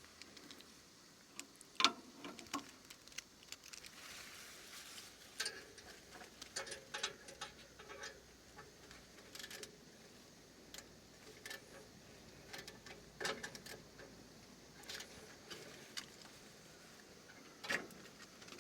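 Faint, irregular clicks and light taps from a turbo whistle being handled and fastened in place, with a few sharper knocks among them.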